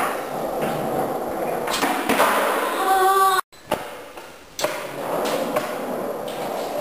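Skateboard on a concrete floor: wheels rolling, with several sharp clacks and thuds as the board is popped and lands during varial kickflip attempts. A short pitched call sounds about three seconds in, just before the sound cuts out for a moment.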